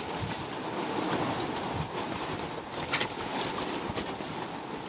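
Steady rush of strong wind and choppy sea water, with a couple of brief knocks about three and four seconds in.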